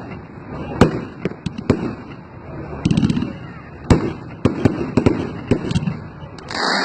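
Aerial fireworks going off in a display: a string of sharp bangs about every half second, with a short run of crackling about three seconds in.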